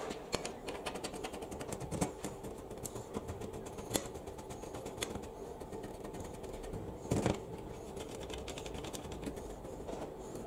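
Small steel parts clicking and clinking against each other as loose nuts, roller chain and a steel plate are shifted by hand on a table top of steel bike sprockets, with a louder metal knock about seven seconds in.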